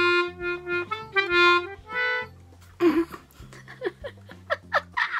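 Hohner melodica being played: a few held reedy notes, then a run of short, quick notes.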